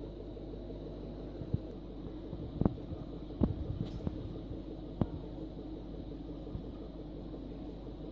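Steady low hum of an aquarium pump, with a few short knocks between about one and a half and five seconds in.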